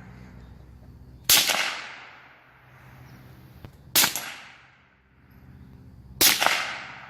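Three single rifle shots from a Smith & Wesson M&P 15-22 in .22 LR, fired slowly about two to two and a half seconds apart, each with a sharp crack that trails off in echo over about a second.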